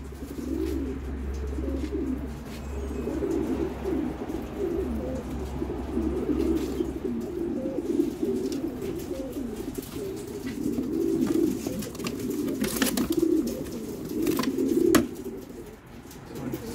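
Many racing pigeons cooing at once, a continuous overlapping chorus of low coos, broken by a few sharp knocks, the loudest near the end.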